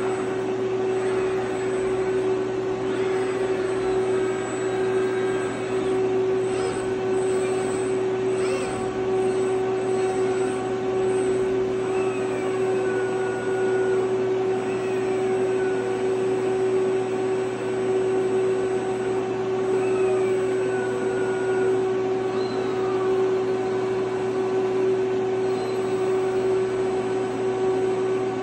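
FANUC R-1000iA/100F six-axis industrial robot running through its motions, its servo motors giving repeated faint rising and falling whines as the axes speed up and slow down, over a loud steady hum.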